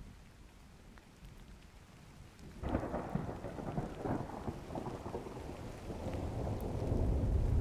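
Thunderstorm: a faint low rumble, then about two and a half seconds in a sudden crackling peal of thunder that rolls on into a deep rumble, swelling near the end.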